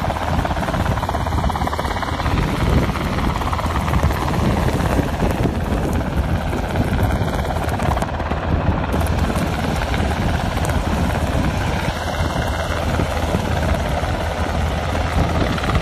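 Black Hawk helicopter flying low, its rotor and turbine engines running steadily with no break.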